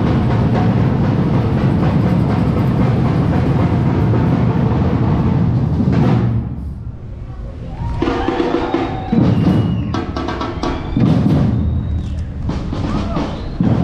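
A loud, even rush of street and traffic noise for about the first six seconds. It then drops away, and music with drums and percussion comes in.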